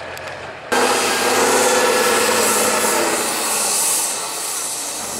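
Off-road trial truck engine running hard under load, rough with a strong hiss over it, starting abruptly at full loudness about a second in after a quieter low engine hum.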